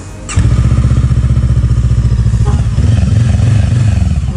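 Small motorcycle engine starting about half a second in and running with a fast, even beat that swells a little near the end. This is a test run after water was drained from the fuel tank, which had been causing stalling and rough acceleration.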